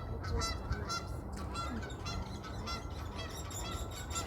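Canada geese honking, many calls in quick succession.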